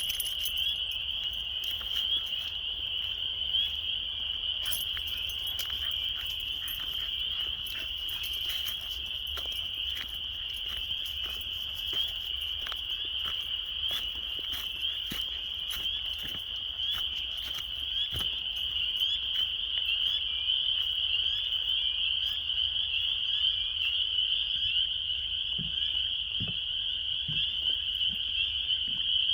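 A chorus of hundreds of frogs calling together as one dense, steady, high-pitched trilling din: males calling to mate at the start of spring.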